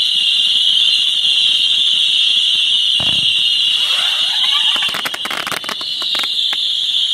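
Daylight fireworks display: a steady, shrill high-pitched whistle from screaming fireworks, with a bang about three seconds in and a quick run of crackling cracks around five to six seconds in.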